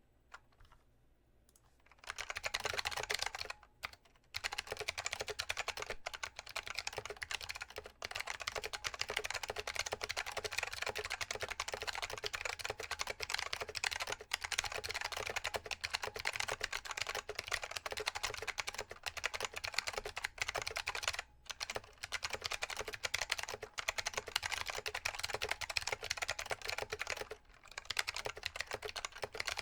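KBParadise V60 Mini mechanical keyboard with Matias Click switches being typed on fast and continuously on a desk, a dense run of clicky keystrokes. Typing starts about two seconds in and breaks off briefly a few times.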